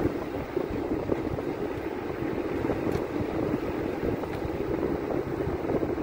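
Steady running noise of a vehicle travelling along a road: an even engine and road rumble.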